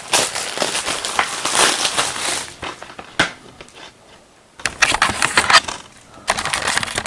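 Packaging crinkling and rustling as it is handled, in three bursts, with a sharp click about three seconds in.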